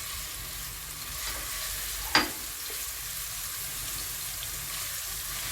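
Minced garlic sizzling steadily in a little oil in a frying pan as it is sautéed, with a single sharp click about two seconds in.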